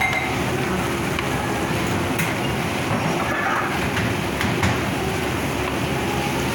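Shredded chicken cooking in bubbling liquid in a frying pan, stirred with a wooden spatula: a few knocks and scrapes of the spatula against the pan over a steady, noisy rumble.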